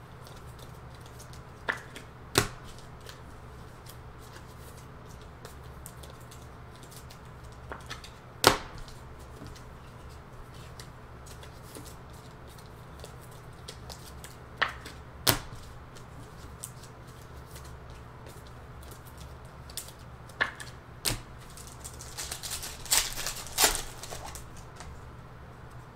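A handful of sharp clicks, several in pairs under a second apart, then near the end a burst of crinkling as a trading card pack's plastic wrapper is torn open.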